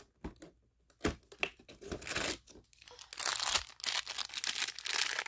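A few taps and scrapes as a small wrapped figure is pulled out of a cardboard advent calendar compartment, then steady crinkling of its shiny plastic wrapper being handled, from about three seconds in.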